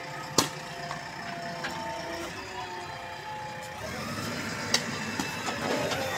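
JCB backhoe loader's diesel engine running, growing louder about four seconds in as the machine moves up to push-start the stalled tractor and its loaded trolley. A sharp knock about half a second in.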